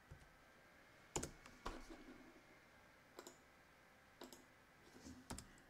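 A few separate computer keyboard keystrokes, about five sharp clicks spaced roughly a second apart, faint over quiet room tone; the loudest comes just over a second in.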